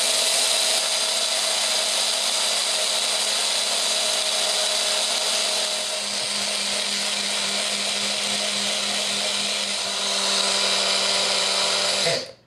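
Baby Bullet blender motor running its milling blade, grinding dry brown rice into powder for baby cereal. A steady high whir that cuts off abruptly near the end.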